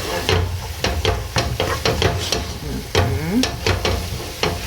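Minced meat with onions, spices and oil frying and sizzling in a pan while being stirred, the utensil scraping the pan in quick, irregular strokes.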